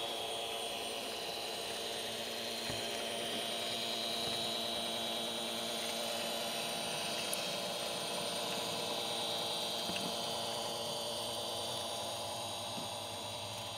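LGB garden-scale model locomotive running: the electric motor and gearbox give a steady whine as the wheels roll on the metal track, with a few faint clicks.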